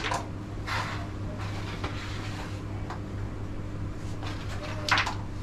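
Sharp clacks of a carrom striker and carrom men on a carrom board: one at the start, a softer one just under a second in, and the loudest about five seconds in.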